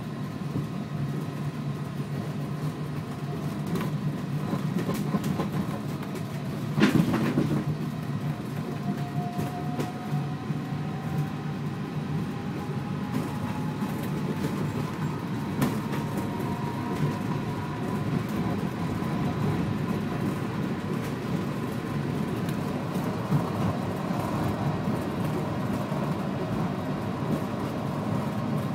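Heathrow pod, a small battery-electric personal rapid transit car on rubber tyres, heard from inside its cabin as it runs along its concrete guideway. It makes a steady running rumble, with a single thump about seven seconds in. A faint whine then rises slowly in pitch over several seconds.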